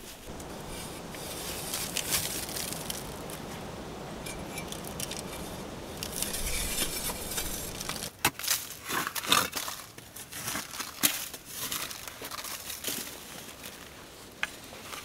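Steady rustling for the first half, then a small entrenching shovel's steel blade chopping and scraping into a packed clay-and-earth trench wall in a run of sharp, irregular strikes, with loosened soil crumbling away.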